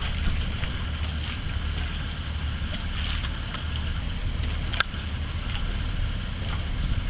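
Steady low rumble of a car ferry's engines as it pulls away from the pier, mixed with wind on the microphone. A single sharp click about five seconds in.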